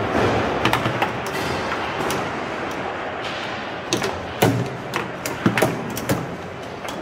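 Foosball play: sharp clacks of the ball being struck by the plastic players and rods knocking, in irregular clusters about a second in, around four seconds and again near six seconds, over steady background noise.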